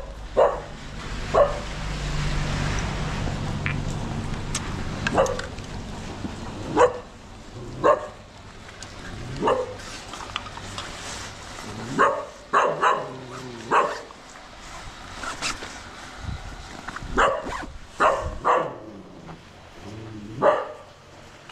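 A dog barking over and over, single sharp barks and short pairs spaced one to a few seconds apart.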